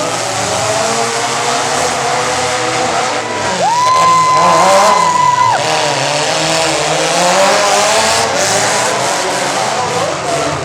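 Compact pickup truck engines running and revving, with one engine climbing to a high held note for about two seconds near the middle before dropping back.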